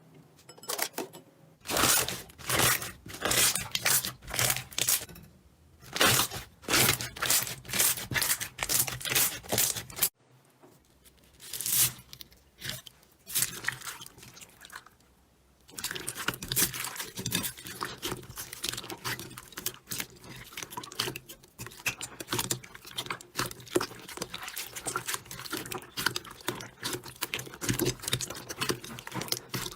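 Slime being squeezed, poked and stretched by hand: a run of sharp crackling pops, roughly two a second, then after a short break a dense, continuous crackle.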